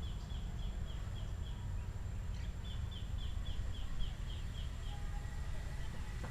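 A high, short, falling call repeated about four times a second in two runs, the second starting about two and a half seconds in, over a steady low rumble.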